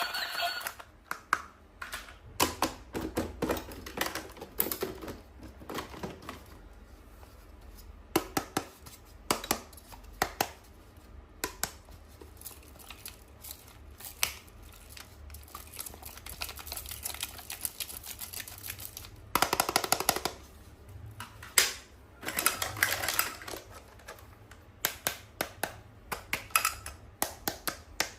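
Irregular clicks and taps of hands handling toys and plastic packaging, with two short bursts of rustling in the last third.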